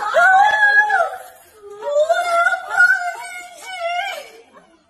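A very high-pitched, childlike voice speaking Mandarin in two phrases. The first is short and held in the first second; a longer, broken one runs from about two seconds in to just past four.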